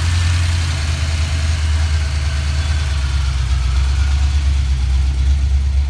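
A 1988 Mustang GT's 302 cu in (5.0 L) small-block Ford V8 idling. It has a Trick Flow cam, long-tube headers and Mac Pro dump mufflers, and its deep exhaust note pulses slightly in loudness.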